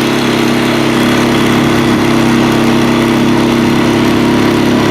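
A small piston engine running steadily at a constant speed, with no change in pitch.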